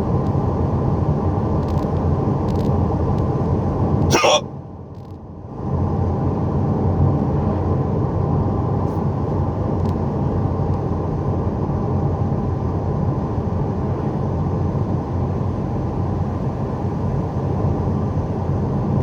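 Steady car cabin noise from the road and engine while driving, with a single sharp hiccup about four seconds in. The background noise dips for about a second just after it.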